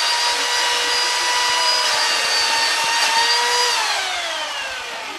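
Electric chainsaw running at full speed with a steady high whine, then released about three and a half seconds in and winding down, its pitch falling.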